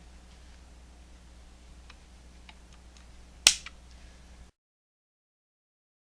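Torque driver on scope ring screws: a few faint ticks, then one sharp click about three and a half seconds in, then the sound cuts out completely.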